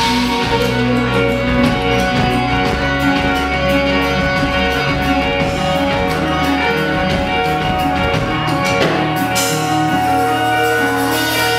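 Rock band playing live: electric guitars and drums in an instrumental passage with sustained guitar notes over a steady beat.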